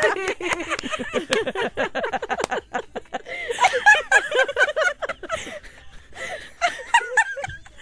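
Women laughing together: quick pulses of laughter for the first few seconds, then breaking into giggles.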